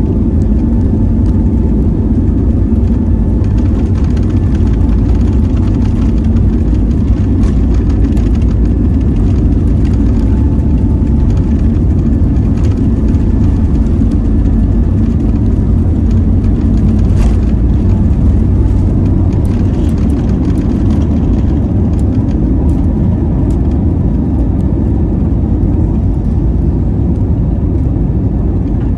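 Loud, steady cabin noise of an Airbus A320neo taking off, heard from a window seat beside its CFM LEAP-1A engine: the deep rumble of the engines at takeoff thrust and of the wheels on the runway. The aircraft lifts off in the second half and carries on into the climb.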